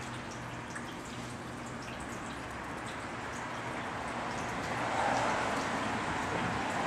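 Steady room hiss with faint scattered ticks of Maine Coon kittens moving on a hard vinyl floor; about five seconds in a louder rustle as a kitten's fur brushes against the camera.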